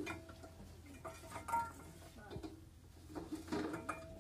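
Metal kitchenware clinking and clanking in three short bouts, each knock leaving a brief ringing tone, as things are handled on the floor.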